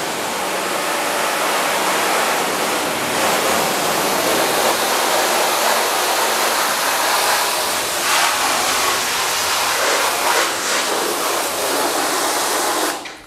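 Pistol-grip garden hose nozzle spraying water onto a car's bonnet, a steady hiss of spray hitting the wet paint that cuts off abruptly just before the end.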